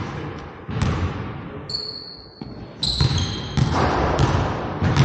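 A basketball bounces on a hardwood gym floor in irregular dribbles, each bounce echoing through the large hall. High squeals of sneakers on the floor come in the middle.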